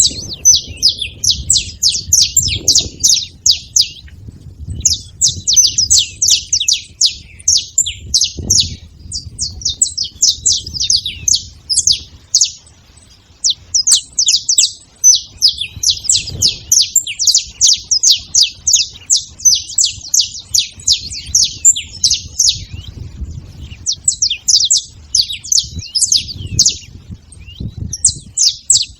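Saffron finch singing: long runs of rapid, high, chipping notes, broken by short pauses about four, twelve and twenty-three seconds in, over a faint low rumble.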